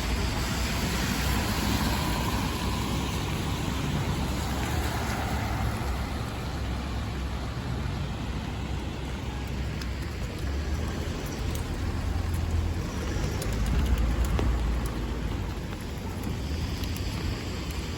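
Steady rain falling, with road traffic going by on wet streets; a vehicle's low rumble swells about fourteen seconds in.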